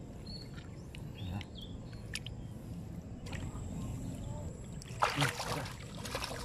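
Wet mud squelching and shallow water sloshing as an arm works down into a mudskipper burrow, with a louder wet splashing burst about five seconds in.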